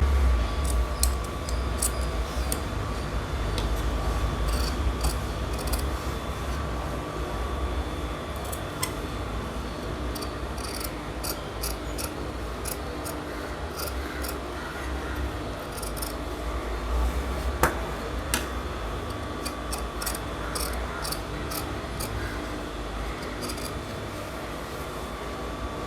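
Tailor's scissors cutting blouse cloth: runs of short, crisp snips with pauses between them.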